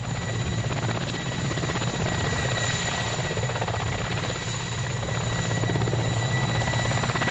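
Mil Mi-8 helicopter running: twin turboshaft engines keep up a steady high whine over rapid rotor pulsing, growing slightly louder near the end.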